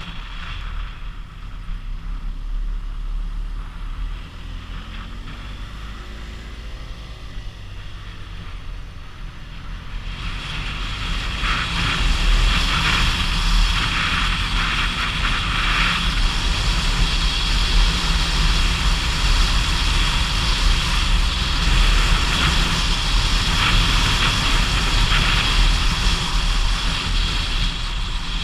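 Motorcycle engine running under way, with wind rushing over the camera microphone; the rush and the overall level get louder about ten seconds in.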